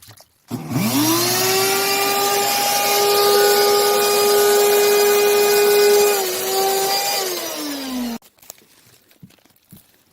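Wet/dry shop vacuum motor, used to suck standing water out of the ductwork and drain pan, starting with a quick rising whine and running steadily. It is switched off about eight seconds in and winds down in pitch.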